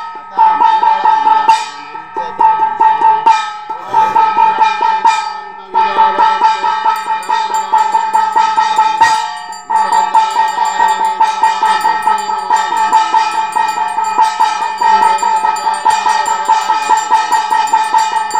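Puja hand bell rung fast and continuously while the arati flame is waved, a rapid clanging ring at one pitch with a few brief pauses in the first half. From about seven seconds in, a second, higher ringing joins it.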